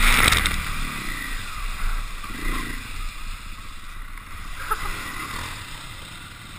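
KTM dirt bike splashing through a deep muddy puddle: a loud splash of water and mud hits right at the start. The engine revs rise and fall as the bike pushes on through the wet ruts, then the sound settles lower near the end.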